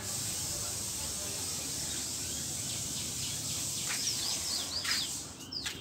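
Small birds chirping: a quick run of short, sharply falling chirps starts about four seconds in, over a steady hiss.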